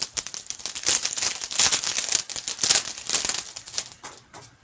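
Wrapper of a 2013-14 Upper Deck Artifacts hockey card pack being torn open and crinkled in the hands: a dense run of quick crackles that stops about four seconds in.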